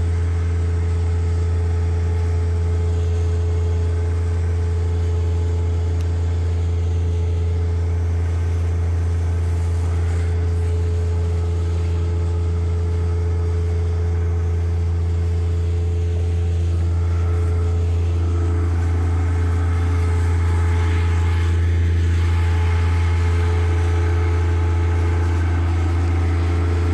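Tractor engine idling steadily, a constant low hum with no change in speed.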